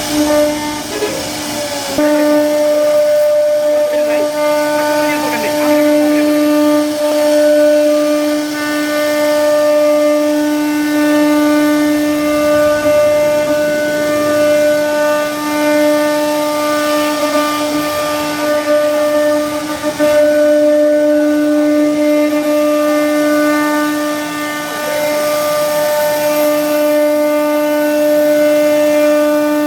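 CNC wood router spindle running at speed with a loud, steady whine, carving a wooden door panel.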